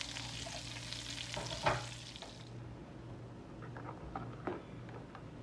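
Sliced sausage sizzling in a frying pan; the sizzle stops about halfway through. A ladle then stirs a pot of gumbo, with a few light clicks and knocks, over a low steady hum.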